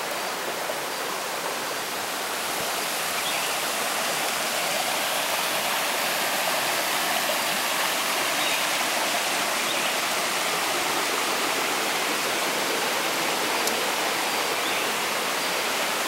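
Steady rush of a stream tumbling over rocks in small cascades, swelling a little a couple of seconds in and then holding.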